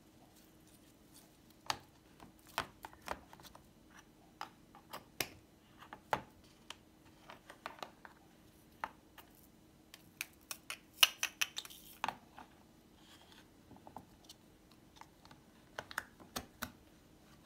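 Small plastic containers being handled: a string of irregular clicks and taps as lids are set and snapped onto plastic tubs and glitter jars, with a denser clatter about eleven seconds in and a lid being pressed shut near the end. A faint steady hum runs underneath.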